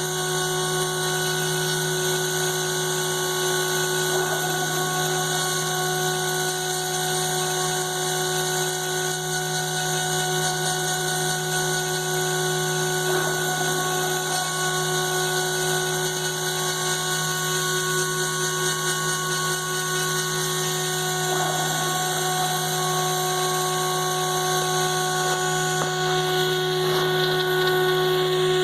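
CNC router spindle running at a steady speed while cutting: a constant whine of several pitches over an even hiss.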